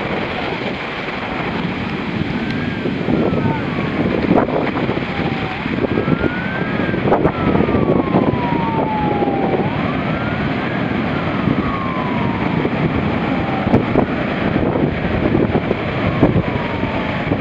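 Heavy shore-break surf breaking and washing up over the sand. A siren wails slowly up and down in the background.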